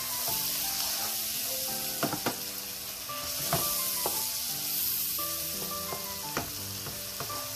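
Onions, garlic and spices sizzling in hot oil in a pot while a wooden spatula stirs them, knocking against the pot several times.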